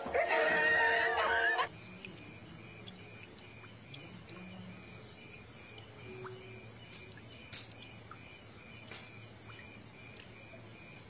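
Crickets chirring in a steady high drone, with a few faint clicks. Before that, the first second and a half holds loud music and laughter that cuts off suddenly.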